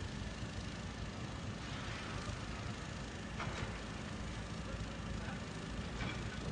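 Construction machinery engines, an excavator's among them, running steadily, with a few metallic clanks, the clearest one about three and a half seconds in.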